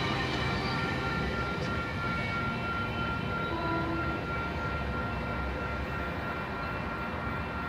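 Metrolink bi-level commuter train rolling along the station platform and away while arriving, making a steady rumble of wheels on rail. A thin, steady high tone runs throughout.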